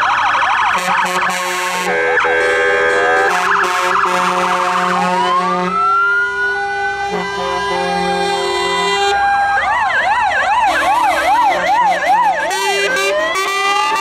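Several fire engine sirens sounding at once: fast warbling yelps overlap slow rising and falling wails, with steady tones cutting in and out.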